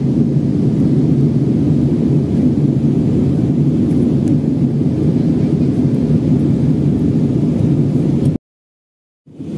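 Steady low roar of an airliner's jet engines and rushing air, heard from inside the passenger cabin on the approach to landing. It cuts out abruptly about eight seconds in and comes back a second later.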